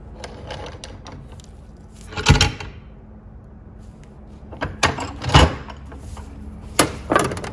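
Metal clunks and knocks as a bent steel rod is worked in a bench vise and taken out: about five sharp knocks, the loudest about two seconds in and again about five seconds in, while an overbent arm is corrected.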